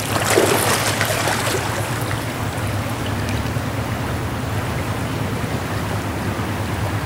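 Steady rush of a fast-flowing, riffled trout stream around wading anglers' legs, with a few louder surges in the first second or so.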